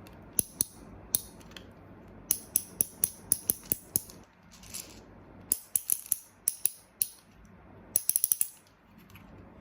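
Miniature gachapon capsule-machine toy having its crank knob turned, giving several short runs of sharp ratcheting clicks as it dispenses a tiny ball.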